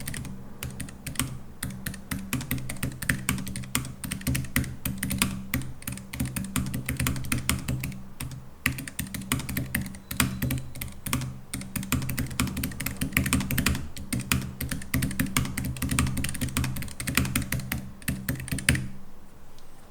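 Fast continuous typing on a Keychron K3 V2 low-profile mechanical keyboard fitted with Keychron optical red linear switches and ABS keycaps: many quick key clicks, stopping about a second before the end.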